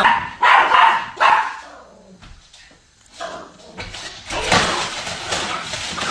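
A dog barking several times in the first second and a half, followed later by a steady noise that cuts off abruptly near the end.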